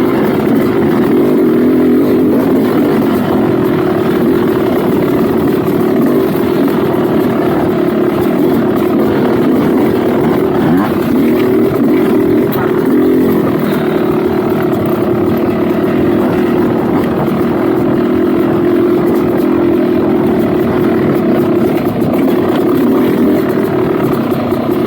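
Dirt bike engine running continuously under riding load, its pitch wavering up and down as the throttle is worked on the trail.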